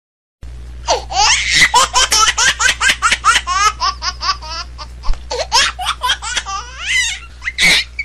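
High-pitched laughter, a long run of quick giggling bursts with pitch sliding up and down, over a steady low hum. It starts abruptly about half a second in and cuts off abruptly at the end.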